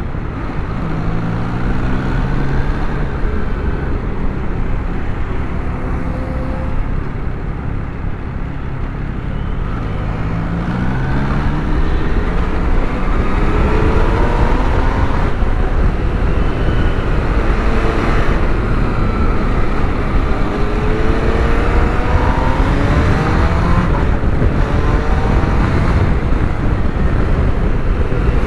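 MV Agusta Turismo Veloce 800's inline-three engine accelerating hard through the gears, its pitch sweeping upward several times over a steady rush of wind and road noise. It grows louder about halfway through.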